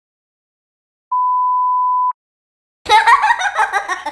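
A steady, high beep tone lasting about a second, then, after a short gap, a loud burst of high-pitched pulsing laughter near the end.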